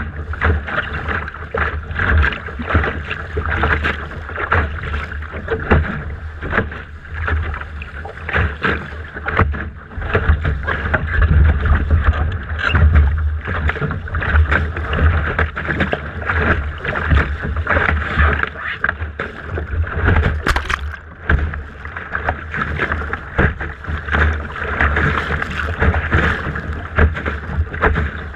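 Wind buffeting the microphone of a camera mounted on a Laser sailing dinghy's deck, with water rushing and splashing irregularly against the hull as it sails.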